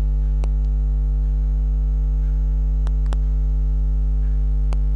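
Steady electrical mains hum with its overtones, running through the recording, with a few faint clicks.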